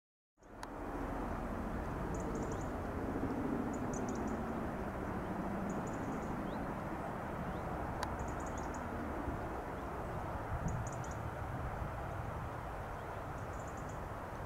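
Distant Boeing CH-47 Chinook twin-rotor helicopter in flight: a steady low rotor and engine rumble that starts about half a second in. Short high chirps come every second or two above it.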